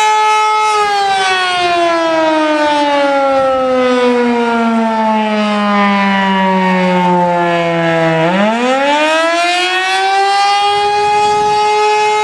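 Outdoor tornado warning siren sounding a loud steady tone, which begins about a second in to fall slowly in pitch, winding down for about seven seconds, then climbs quickly back up to full pitch about eight seconds in and holds steady again.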